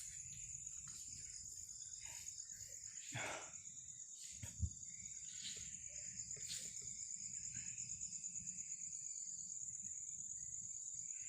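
Night insects chirring steadily in a high, pulsing trill. A single soft thud about four and a half seconds in.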